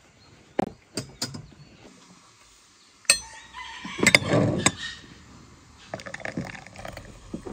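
Glass and crockery clinking lightly a few times at a table, with a louder sound about four seconds in. Near the end, a samovar tap opened and hot water pouring from it into a tea glass.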